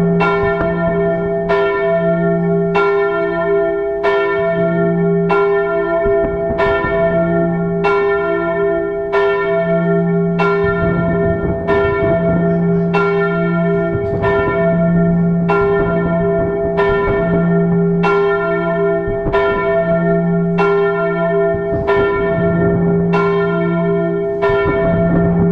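Church bells ringing, several bells sounding together with a strike about once a second.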